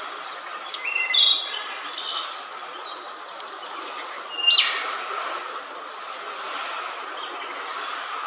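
Wood thrush singing: a few short flute-like phrases about a second in, around two seconds in, and a louder one about four and a half seconds in that ends in a high buzzy trill. A steady background noise haze runs beneath the song.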